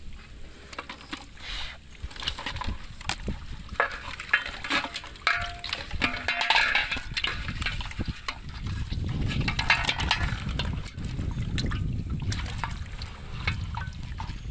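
Water splashing and sloshing in irregular bursts, with scattered sharp clicks and knocks.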